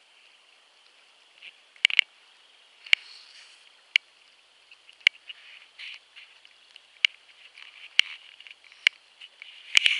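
Frogs calling at dusk: sharp, high peeps about once a second over a faint steady chorus, with a quick cluster of calls near the end.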